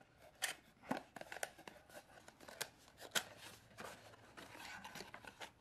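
Small cardboard box being opened by hand, its tuck flap worked out of the slot, giving faint scattered clicks and rustles of card.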